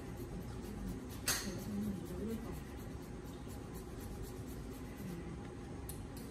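Light scratching strokes of a small nail tool worked on a toenail, with one sharp click about a second in.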